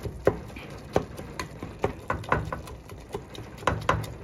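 Plastic meat-chopper tool repeatedly knocking and scraping against the bottom of a pan as it breaks up cooked ground beef, in irregular clicks about two to three a second.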